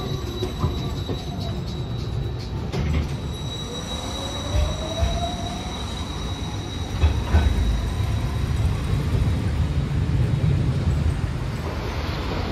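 Hiroshima Electric Railway articulated low-floor tram pulling away, with a low rumble throughout. A thin, steady high wheel squeal lasts until about two-thirds of the way through. Near the middle a motor whine rises in pitch for a couple of seconds, and a few sharp clacks from the wheels on the rails come at the start and again just past the middle.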